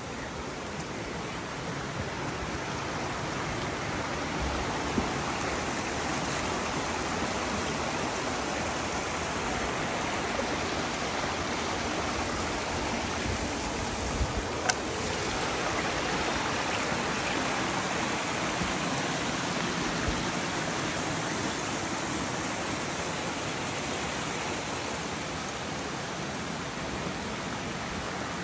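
Water of a rocky mountain stream below a waterfall, rushing and splashing steadily over stones. A couple of brief clicks come about halfway through.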